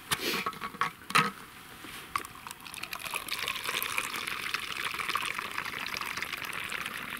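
Liquid poured from a stainless steel thermos flask in a steady trickling stream starting about two and a half seconds in, after a few clicks and knocks of handling the flask.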